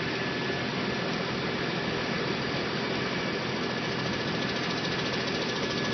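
Fire engine's engine and fire pump running steadily at idle, heard close at the pump panel.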